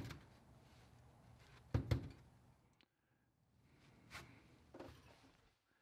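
Mostly quiet. About two seconds in comes a single dull knock as the antique metal-and-wire trap is handled against the tabletop, and later two faint ticks.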